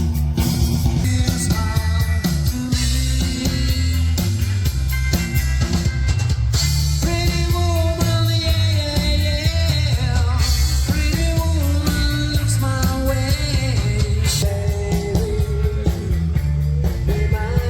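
Rock song with a male or female singing voice over a drum kit and guitar, with a heavy, steady beat.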